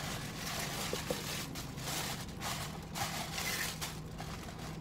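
Cardboard and packaging rustling and scraping in several short spells as a cosmetics mailer box is opened and its contents handled.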